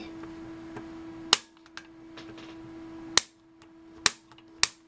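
Piezo grill-lighter igniter snapping four times, sharp clicks at uneven intervals of about half a second to two seconds. Each snap fires a high-voltage spark transient into the multimeter's input during ESD testing.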